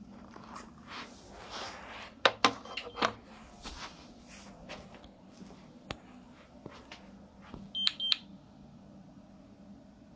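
Handling clicks and knocks, the loudest a little over two seconds in. About eight seconds in comes a short, high electronic beep from the GE Simon XT security system.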